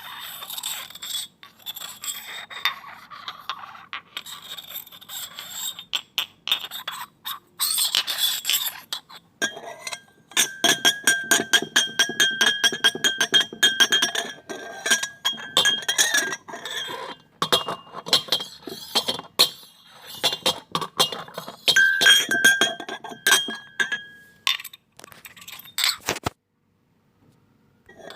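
Glass pieces clinking and scraping against each other. Through the middle come rapid taps that set the glass ringing with a clear, steady tone, and the sound stops suddenly about two seconds before the end.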